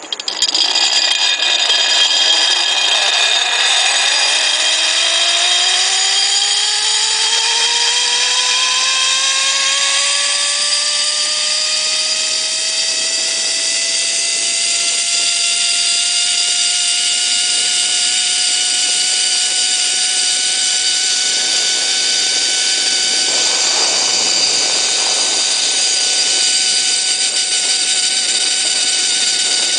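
Zip line trolley pulleys running along the steel cable: a loud whine that climbs in pitch over the first ten seconds or so as the rider picks up speed, then holds steady at full speed.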